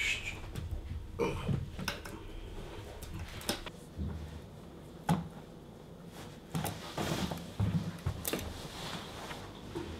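Sneaker laces being pulled and tied: scattered small clicks and rustles, with a few soft thumps of shoes shifting on a rug.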